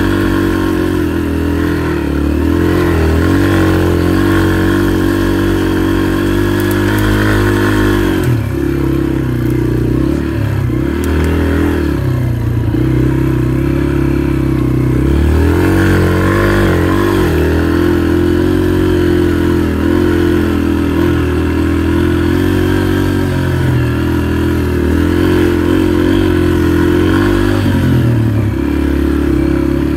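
Off-road motorcycle engine running under way, its revs rising and falling over and over as the throttle is worked.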